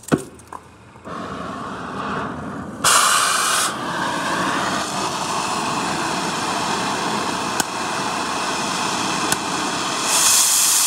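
Oxy-acetylene cutting torch flame hissing steadily while it heats a steel nut on a bolt, after a sharp pop at the very start. About three seconds in, and again near the end, it turns into a louder, harsher blast for a moment as the cutting-oxygen lever is pressed.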